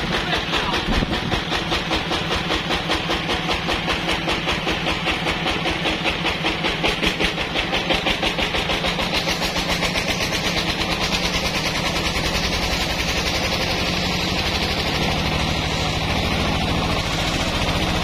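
Single-cylinder stationary diesel engine driving a sawmill, running with a fast, regular thump. From about ten seconds in the sound becomes steadier and brighter as the band saw cuts through a large log.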